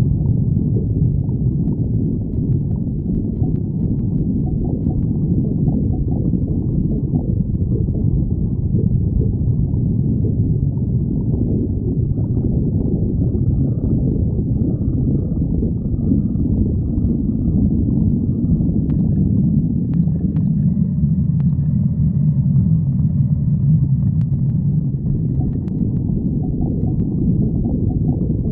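A person's stomach growling: continuous low rumbling and gurgling of digestion, with faint higher squeaky tones over the second half. This is typical of an empty, hungry stomach.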